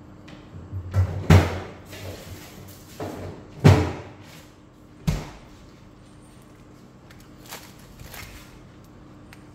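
A few loud knocks and thuds, about a second and a half apart, with softer clatter between and two faint knocks near the end.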